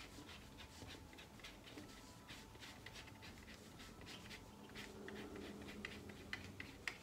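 Faint ticking and scratching of a fine paintbrush laying acrylic paint onto a painting board in short strokes.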